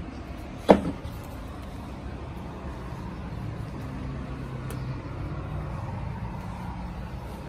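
Steady low rumble of road traffic, with a vehicle engine's hum swelling slightly through the middle. Under a second in comes a single sharp, loud knock with a brief ring.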